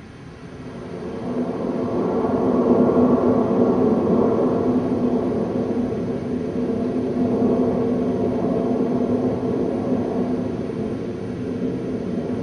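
A steady rumbling drone with a low hum running through it, swelling in over the first two seconds and then holding level. It is the ambient opening of the piece's soundtrack.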